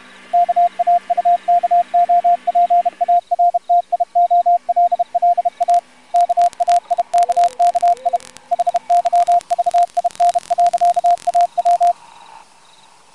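Morse code over a radio: one steady beep keyed on and off in dots and dashes over static hiss, stopping near the end. A low hum sits under the first few seconds, and sharp crackling clicks come through in the second half.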